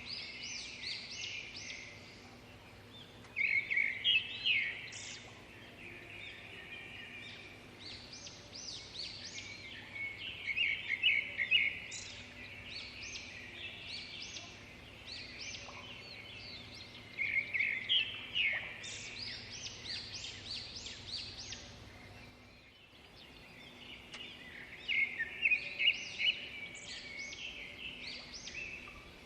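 Small birds chirping and twittering in repeated bursts every few seconds, over a faint steady hum.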